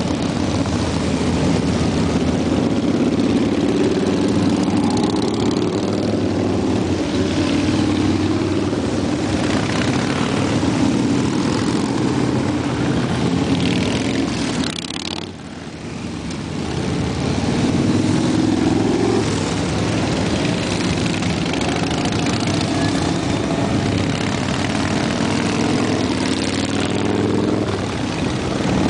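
A stream of cruiser and touring motorcycles riding past in a procession, their engines running together with engine notes rising now and then as riders pull away. There is a brief lull in the engine noise about halfway through.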